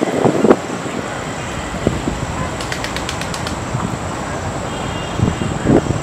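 Wind blowing on the microphone: a strong gust buffets briefly at the start and dies away about half a second in, leaving a steady rushing. A short run of faint high ticks comes about halfway through, and a couple of dull bumps come near the end.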